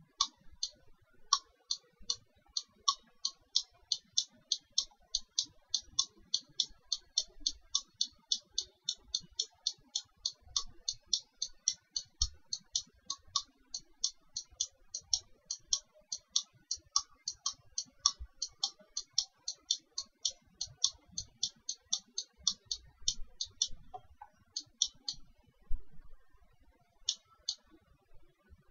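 Computer mouse clicking in a fast, even run of about three clicks a second, then a short pause and a few clicks in pairs near the end.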